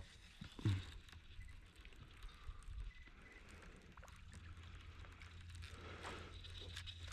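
Quiet sounds on a fishing boat: a low steady hum that firms up about halfway through, with a few faint knocks and light water.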